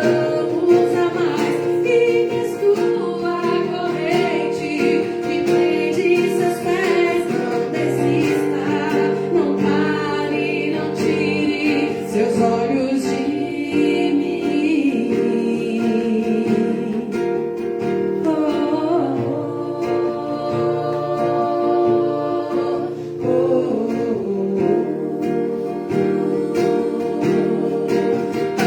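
A song sung to guitar accompaniment, the voice holding long gliding notes over steady guitar chords.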